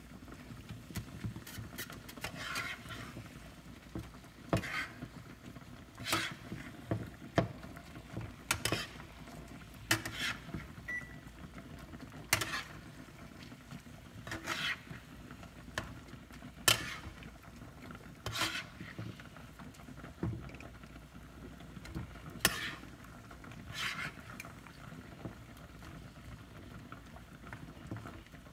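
A cooking utensil scraping and knocking against a frying pan as greens are stirred and turned, in short strokes about every one and a half to two seconds.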